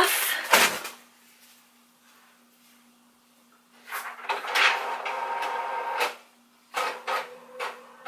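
A thump about half a second in, then a printer running for about two seconds with a steady whine, followed by a few sharp clicks near the end as it works.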